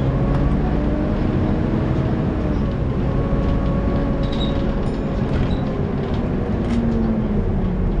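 Volvo B7TL double-decker bus on the move, heard from the upper deck: a low rumble with the steady whine of its engine cooling fan, the "screechy hoover" noise. The pitch dips about three seconds in and rises again near the end, with a few light rattles.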